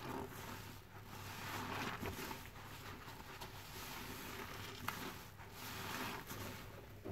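Soapy sponge, loaded with detergent foam, squeezed and kneaded by a rubber-gloved hand: wet squelching and crackling lather that swells and fades with each squeeze.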